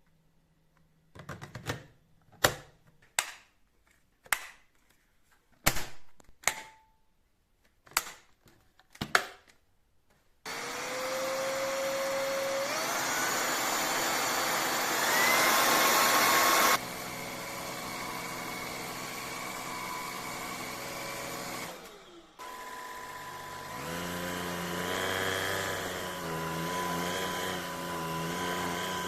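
A series of sharp clicks and knocks, then a cordless stick vacuum's motor starts up with a rising whine and runs steadily. It goes louder for a few seconds before dropping back, cuts out briefly about two-thirds of the way through, and starts again.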